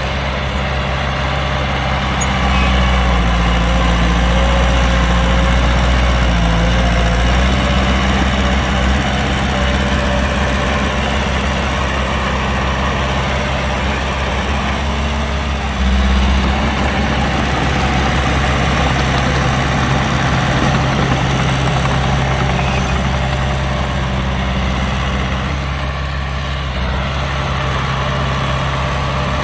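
Heavy diesel engines of earthmoving machinery, dump trucks and a bulldozer, running steadily as a deep rumble with a faint steady whine above it. It swells a little about two seconds in and again briefly about sixteen seconds in.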